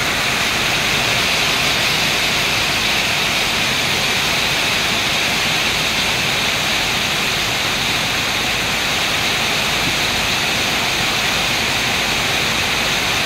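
Heavy tropical downpour: rain pouring down hard and steadily, a loud unbroken hiss with no let-up.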